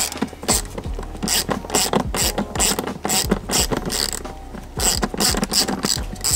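Hand ratchet clicking in quick irregular runs as screws are backed out of the lid of the ECU and TCU box.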